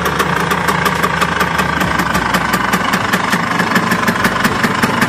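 Vespa PX 200 scooter's single-cylinder two-stroke engine idling steadily on its stand, with an even, rapid beat.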